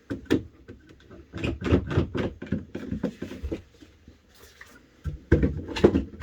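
Length of old 3x2 timber being clamped down: a run of quick clicks and knocks of the clamp and wood handling, a pause, then a second burst near the end.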